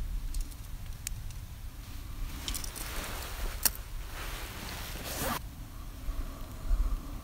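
Handling noises of small gear being set down and picked up: a few light clicks, the sharpest about halfway through as a small nail-clipper tool is put down on a wooden stump, and two swishing rustles of a jacket sleeve as the arm reaches out and back, over a steady low rumble.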